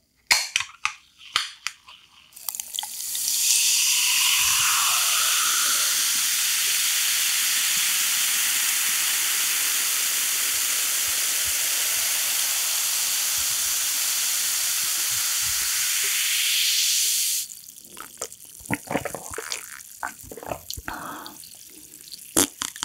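A can of Coca-Cola Light clicks open, then the cola is poured over ice into a glass and fizzes with a loud, steady hiss for about fifteen seconds. The fizz cuts off suddenly and is followed by small clinks and swallowing sounds as it is drunk.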